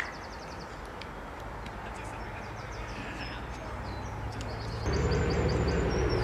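Outdoor ambience: a steady low rumble that gets suddenly louder about five seconds in, with a bird chirping repeatedly in quick short notes near the end.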